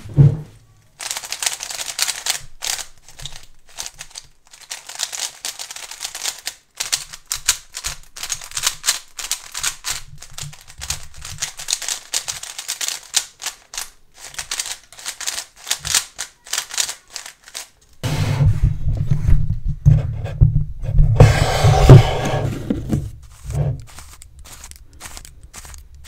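A Valk 3 Power speed cube's plastic layers turned quickly by hand, a dense run of clicks and scrapes. The new cube is dry out of the box. From about 18 seconds in, the cube is worked right against the microphone, giving louder handling sounds with a heavy low rumble.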